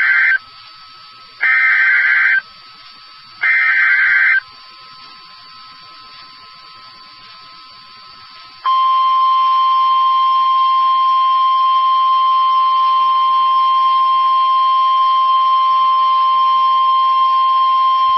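Emergency Alert System header: the end of one burst of shrill data tones, then two more one-second bursts about a second apart, each repeating the digital header. After a few seconds' gap comes the EAS attention signal, a loud steady single-pitched tone that starts about nine seconds in and keeps going.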